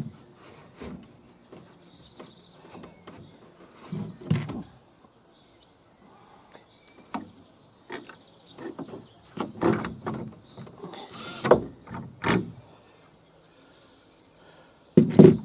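Scattered knocks and short bursts of noise from a cordless drill-driver screwing into a timber wall-frame stud, with the wood and the tool being handled; the loudest knocks come near the end.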